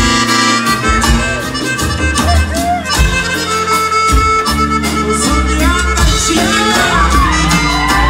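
Norteño band playing live: a button accordion carries the melody over a steady bass line and guitar.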